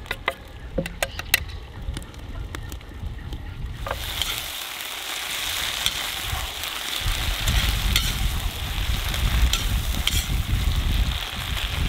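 Lamb ribs, potatoes and vegetables sizzling in a cast-iron kazan over a wood fire, stirred with a metal skimmer. For the first four seconds there are light clicks and scrapes as a knife pushes chopped greens off a wooden board into the pot. About four seconds in the sizzling suddenly gets much louder.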